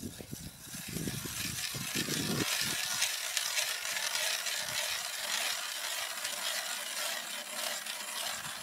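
Hand ice auger drilling a fishing hole through lake ice: the blades shave the ice with a steady scraping hiss, with a few low knocks in the first couple of seconds. The hiss cuts off suddenly near the end.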